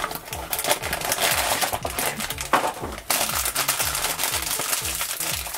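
Cardboard blind box flaps rustling, then a metallised foil blind bag crinkling and crackling as hands work it open.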